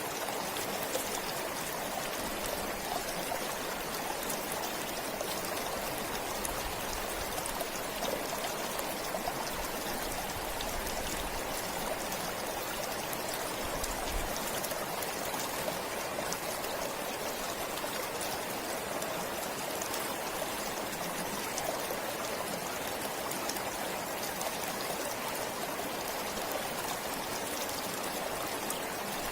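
A forest stream flowing steadily, a continuous rush of water with fine trickling and splashing over it.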